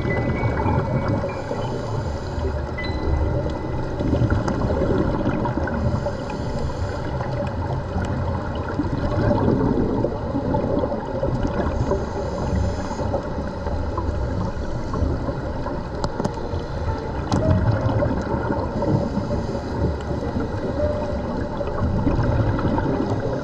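Underwater sound on a scuba dive: a steady rush of water noise, with a gurgling swell of exhaled regulator bubbles about every five seconds.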